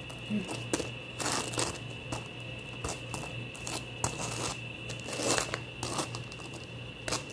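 A hand rustling and flexing soft round whole-wheat flatbreads, rubbing them against the others stacked in a woven basket: a string of irregular scraping, crinkling rubs.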